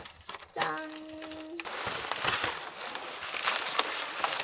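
Inflated foil balloons crinkling and rustling as they are handled and tied together with ribbon, with many small crackles. A brief held tone sounds about a second in.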